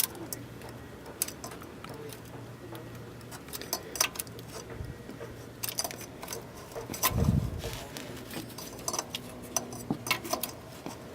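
Scattered metallic clicks and clinks of a hand tool working against a newly fitted oil filter as it is tightened, with one dull thump about seven seconds in.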